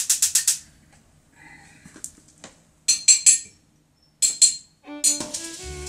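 Dishes and cutlery off-camera: a rapid, even scraping that stops about half a second in, then a few scattered clinks and clicks with pauses between them.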